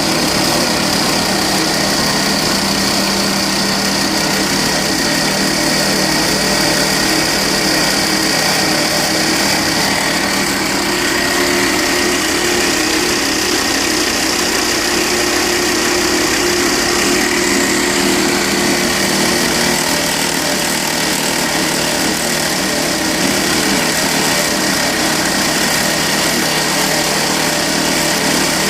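Volvo XC60 2.4-litre five-cylinder D5 diesel engine running steadily, with a rattling noise from the alternator: the alternator pulley's bearing is worn.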